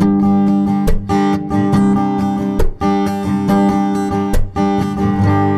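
Takamine steel-string acoustic guitar strummed in a down-up pattern, broken three times, about every second and three-quarters, by a sharp percussive clack where the heel of the palm mutes the strings and the pick strikes them dead. The strum picks up again after each clack.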